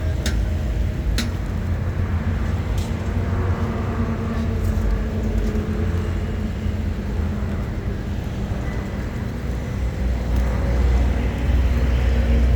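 Road traffic running steadily, with the low rumble of vehicle engines. A few sharp clicks come in the first few seconds, and the rumble grows louder near the end as a vehicle comes closer.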